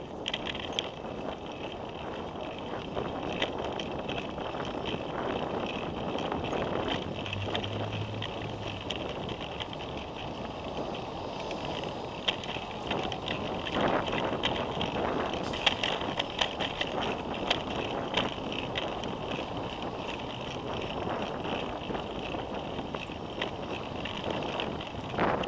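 Bicycle being ridden along city pavement, heard from a camera on the bike: steady rolling noise with frequent small rattles and clicks.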